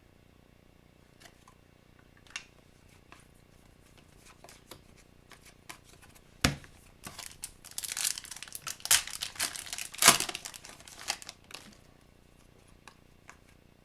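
Foil wrapper of a 2022-23 Upper Deck Series 1 hockey card pack being torn open and crinkled. There are a few light ticks first, a sharp snap about six and a half seconds in, then several seconds of crinkling and tearing, loudest around ten seconds.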